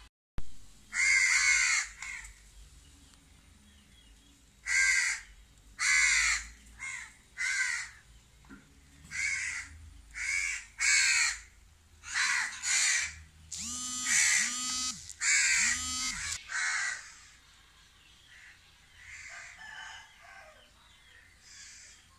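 House crows cawing: about a dozen loud, harsh caws, spaced a second or so apart, then fainter calls near the end.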